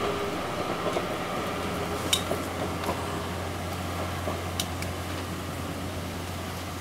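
Faint, receding sound of a C58 steam locomotive's train fading out of hearing, leaving a steady hiss of background noise. A low steady hum sets in about a second and a half in, and a couple of sharp clicks stand out.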